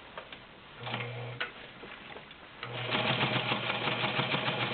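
Vintage White model 614 sewing machine with its 1.3-amp motor, stitching through five layers of denim. A short run about a second in, then from near the three-second mark a steady run with a hum and rapid, even needle ticks.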